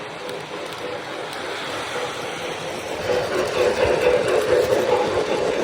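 O gauge model train running on the track, a steady rumble of wheels and motor that grows louder about three seconds in.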